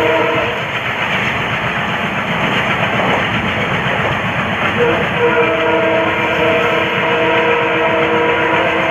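WDM3D diesel locomotive horn: a blast ends just after the start, and a second, long blast begins about five seconds in and is held to the end. Both sound over the steady running noise of the moving train.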